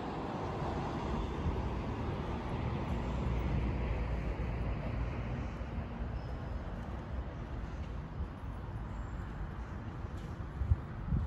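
Street traffic: a steady low rumble of road vehicles, with one vehicle swelling up and passing by in the first few seconds. A short low thump near the end.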